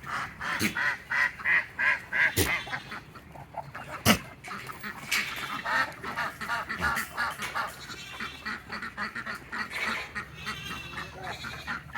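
A flock of farm poultry calling over one another in many short, repeated calls, with a couple of sharp knocks about two and four seconds in.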